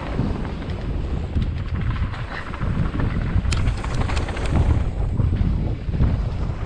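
Wind buffeting the microphone of a camera on a moving mountain bike, a steady low rumble, with tyre noise on the dirt trail and scattered rattling clicks from the bike.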